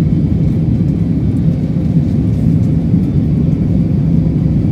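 Jet airliner cabin noise in flight: the steady low rumble of engines and rushing air, heard from inside the cabin.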